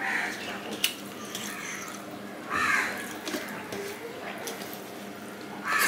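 A crow cawing three times, about three seconds apart: one short harsh call at the start, one a little before halfway and one at the very end. Between the calls come light clicks of fingers mixing rice and curry on a steel plate.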